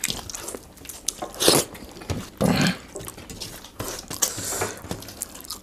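People eating chicken curry and rice by hand: wet chewing and smacking mouth clicks, with a few loud breaths.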